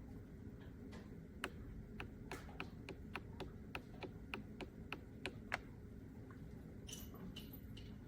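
A run of faint, fairly regular clicks, about three a second, over a low steady hum, with a short hiss near the end.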